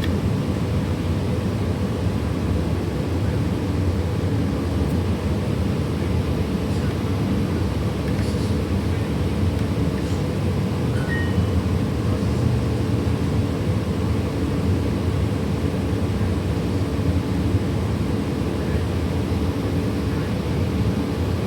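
City transit bus running, heard from on board: a steady engine drone with road noise.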